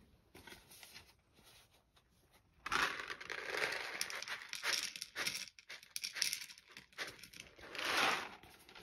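Close, crinkly rasping in quick irregular strokes, starting about three seconds in and peaking near the end: a grey tabby cat licking and grooming its fur.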